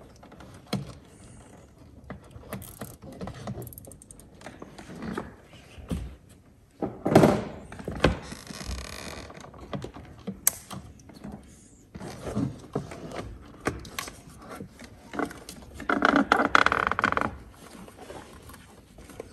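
Hand-handling noises of cable plugs and wiring in a motorhome's toilet-cassette compartment: scattered small plastic clicks and knocks, with a louder knock about seven seconds in and a rustle lasting about a second near the end.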